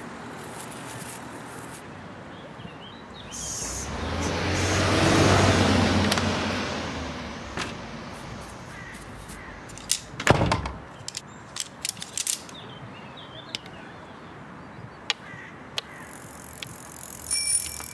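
City street ambience: a vehicle passes, swelling and fading about four to seven seconds in, followed by a run of sharp clicks and scattered ticks, and a short bell-like ring near the end.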